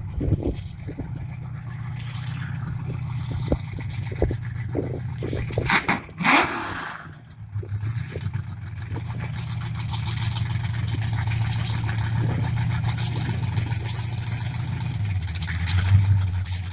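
Big-block Mopar V8 running, with scattered knocks early on and a loud rise and fall in the engine sound about six seconds in; it then dips briefly and settles into a steady run that steps up a little near the end.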